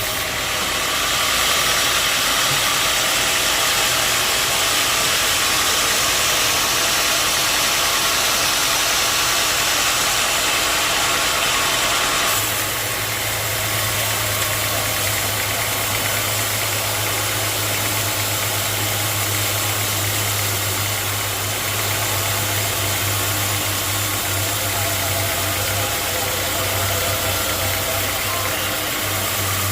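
Sawmill machinery running steadily. About twelve seconds in, the high hiss drops away and a steady low hum takes over.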